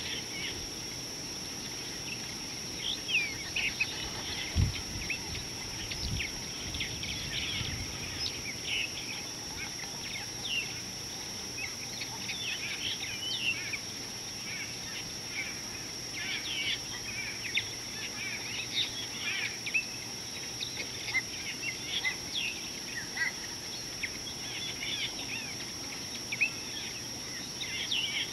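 Bird chorus: many short chirps and calls scattered throughout, over a steady high-pitched insect drone. A couple of low thumps come about five seconds in.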